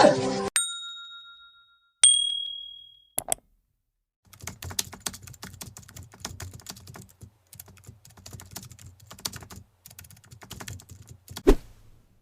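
Two ringing dings that fade over about a second each, then a click, then several seconds of rapid computer-keyboard typing clicks, ending in a single sharp knock near the end.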